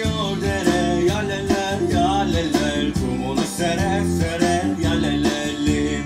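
Turkish folk song played by a band of bağlama, bass guitar and drums, with a man singing the melody over it.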